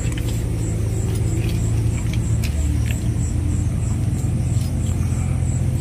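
Steady low rumble with a few faint, sharp crackles from a wood fire burning in a clay chulha, and a faint high pulse repeating about three times a second.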